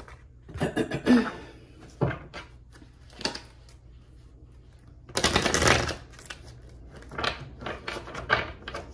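A deck of tarot cards being handled and shuffled: scattered taps and clicks of the cards, with a longer riffling rush of under a second a little past the halfway point.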